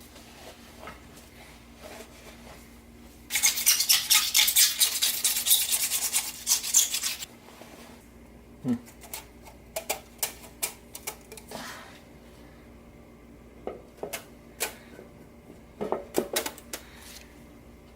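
Rapid scrubbing for about four seconds, starting a few seconds in, then scattered light knocks and clinks of tools and metal parts being handled.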